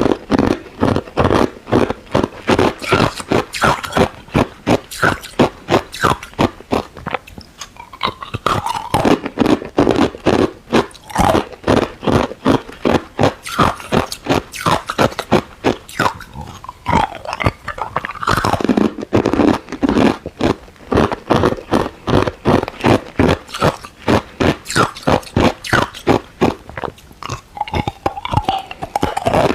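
Ice being chewed right at the microphone: a rapid run of crisp, crackling crunches, several a second, as the cubes break between the teeth.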